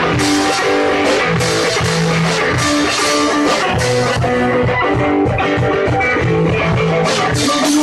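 Rock music with guitar, bass and drum kit playing steadily and loud.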